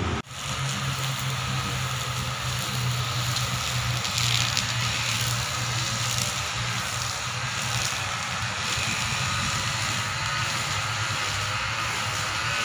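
Wind blowing across the microphone, a steady rushing noise over a constant low hum.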